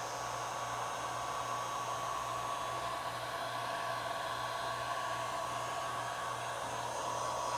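Heat gun running steadily on a low setting, blowing hot air onto a rubber deck pad to warm it and activate its adhesive: an even rush of air with a constant whine.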